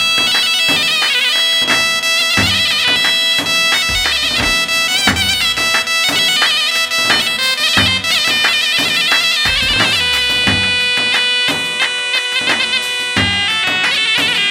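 Instrumental Arabic folk dance music, with no singing: a reedy wind-instrument melody over a held drone, driven by a steady drum beat.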